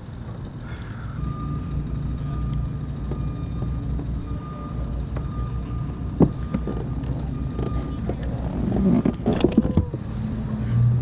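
Race-car engines from a nearby motor race running as a steady low rumble, with a thin steady whine over it for several seconds. A sharp knock comes a little past halfway, and a burst of knocks and clatter near the end as gear is handled on the kayak.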